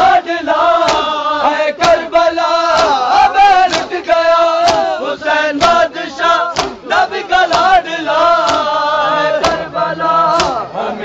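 A group of men chanting a Shia nauha lament in unison, with rhythmic matam, hands striking chests together about once a second.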